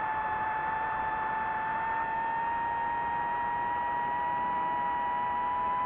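DJI FPV drone's electric motors and propellers whining at a steady pitch that creeps slowly higher, over a constant hiss of rushing air.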